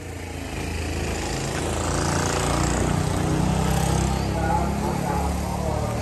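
A small motorcycle engine running, getting louder over the first couple of seconds and then holding steady.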